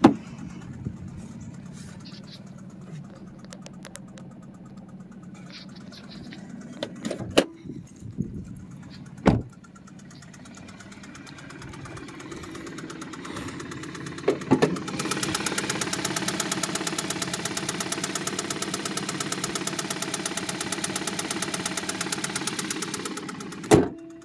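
2012 Hyundai Veloster's 1.6-litre four-cylinder idling with a rapid, even knock, which the owner takes for a worn wrist pin. The knock grows much louder about fifteen seconds in, and a few sharp bumps come in between.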